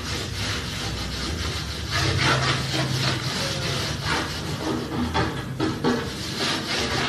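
Repeated scraping and rubbing strokes on a table top as dried screen-printing paint is worked off, with a low steady hum underneath.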